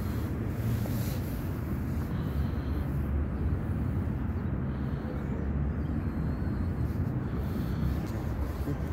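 A cat purring with a low, steady rumble while being stroked.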